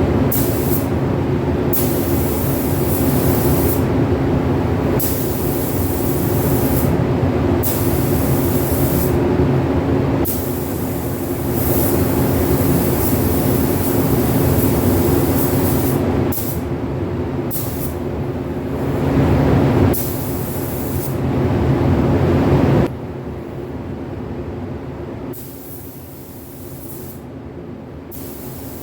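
Loud ventilation fan running steadily with a hum, while a paint spray gun hisses in short repeated passes as clear coat is sprayed. About two-thirds of the way through, the overall noise drops sharply and the hissing passes grow sparse.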